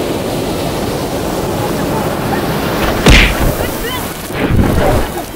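Sea surf washing in as a steady rush of noise; about three seconds in a wave surges over the low camera with a loud splash of water striking the microphone, and more water sloshes over it a second or so later.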